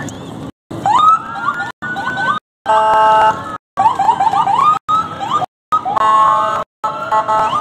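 Electronic emergency-vehicle siren sounding rapid rising chirps and yelps, broken by two steady horn blasts about three and six seconds in. The sound cuts out briefly several times.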